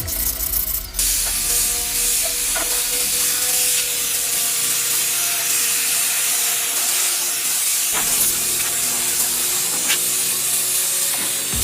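A steady spraying hiss that runs on evenly, with a few faint clicks.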